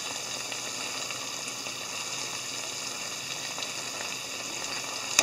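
Hijiki, lotus root, carrot and soybeans simmering in a shallow layer of soy-and-dashi liquid in a frying pan: a steady sizzling bubble as the liquid cooks down, with light scrapes of a spatula stirring it.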